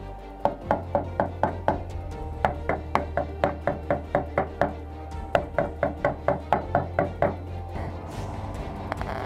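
Hammer tapping on a thin steel patch panel in quick, even runs of about four blows a second, each with a short metallic ring, pausing twice and stopping about seven seconds in. Background music plays underneath.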